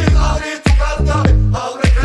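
Background music with a steady drum beat and a deep bass line.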